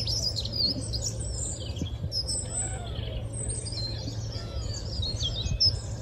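Several small songbirds singing at once in an early-morning chorus, many short overlapping chirps and warbled phrases, over a low steady hum.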